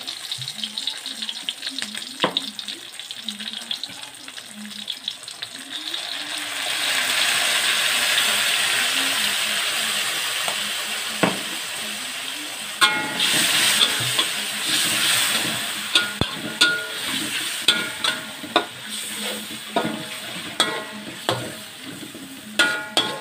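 Sauces and onions frying in a hot wok. The sizzle swells about six seconds in and then slowly fades. In the second half a metal spatula scrapes and clinks against the wok as the mix is stirred.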